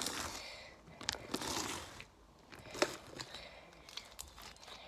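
Sticky glue-and-activator slime being kneaded and pulled off a plastic-covered table by hand: wet, crackly squelching, in two longer stretches over the first two seconds, then a sharp pop a little after two and a half seconds and a few small clicks.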